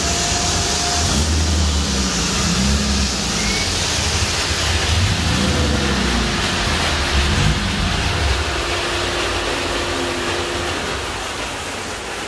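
Turbocharged 2.0-litre four-cylinder engine of a methanol-fuelled 1987 VW Jetta drag car running under load on a chassis dyno, its pitch rising and falling. About eight seconds in, the sound starts winding down and fades steadily.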